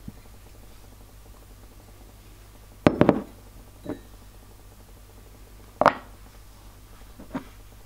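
Small cast-iron incense burner being handled on a wooden table: a short cluster of metal clinks as the lid comes off the pot about three seconds in, then a single sharp knock as the lid is set down on the table about three seconds later, and a softer knock near the end. A faint low hum runs underneath.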